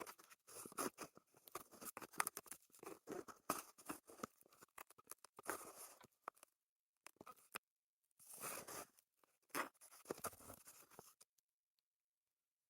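Faint, close-miked ASMR prop sounds: rapid small clicks, snips and scratches, with a pause in the middle, stopping about eleven seconds in.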